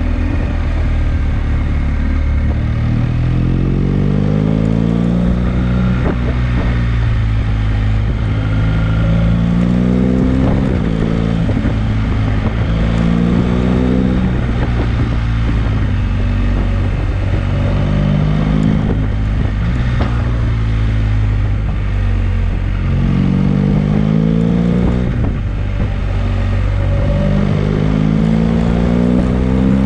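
BMW GS boxer-twin motorcycle engine under way, revving up in repeated rising sweeps as it accelerates out of bends and falling back as the throttle closes.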